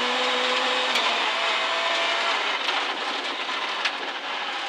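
Citroën C2 R2 Max rally car's 1.6-litre four-cylinder engine, heard inside the cabin at speed. It holds steady revs under a constant rush of tyre and road noise. About halfway through the engine note drops away, leaving mostly the rush, and it picks up again near the end.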